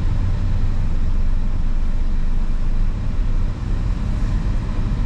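Steady low rumble of a car's engine and road noise, heard from inside the moving car, with a brief dip in level about three and a half seconds in.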